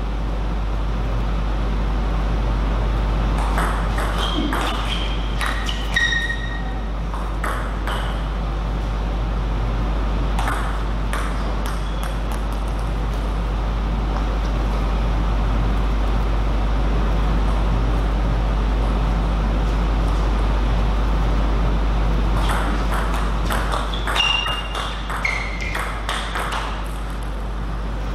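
Table tennis ball clicking off bats and table in two short rallies, about three to eight seconds in and again near the end, mixed with short high squeaks of shoes on the court floor. A steady low hum runs underneath.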